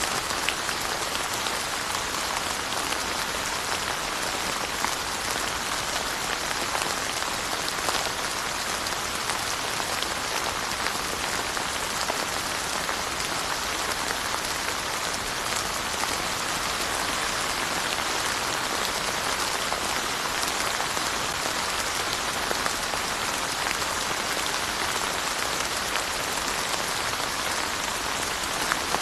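Steady rain falling on surfaces, an even hiss with many small drop ticks scattered through it.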